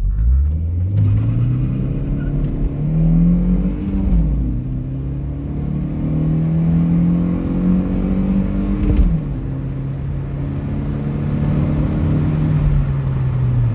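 A 1992 Volvo 940's naturally aspirated 2.3-litre eight-valve four-cylinder engine accelerating hard from a standstill to 100 km/h, heard from inside the cabin. Its note climbs and falls back twice, at about four and nine seconds in, as the five-speed manual gearbox is shifted up, then climbs again.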